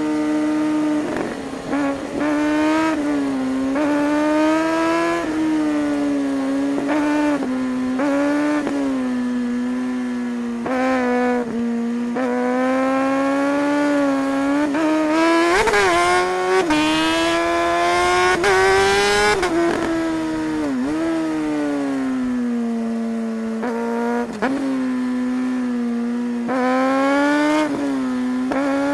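Suzuki GSR 600 K8's inline-four engine under a rider's throttle, its pitch climbing and falling again and again: short rises cut by quick drops at gear changes, one long high climb about halfway, then easing off with sharp dips before pulling up again near the end.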